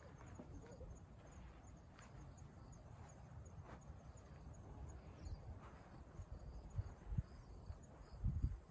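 Faint outdoor ambience: a steady high insect chirring over a low rumble of wind on the microphone, with a few short low thumps near the end.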